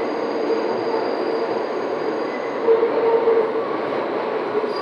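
New York City subway N train running, heard from inside the car: a steady rumble of wheels on rail with thin, high-pitched wheel squeals held over it.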